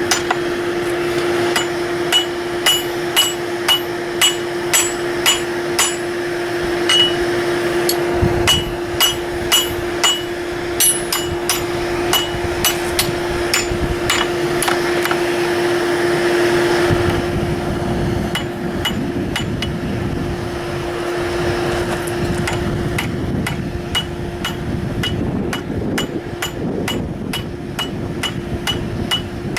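Blacksmith's hammer striking steel on an anvil in a steady rhythm, about two blows a second, each blow with a bright ring; the blows come faster and lighter in the last several seconds. A steady low hum runs underneath.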